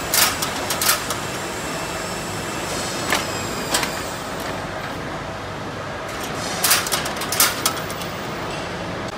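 Automatic chain link fence weaving machine running with a steady mechanical noise, broken by clusters of sharp metal clacks about every three seconds as it goes through its weaving cycle.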